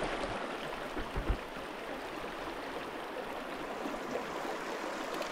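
Mountain stream rushing steadily over rocks, with two dull low bumps a little over a second in.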